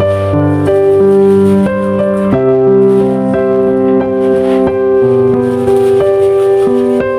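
Instrumental background music: a melody of short notes over held bass notes.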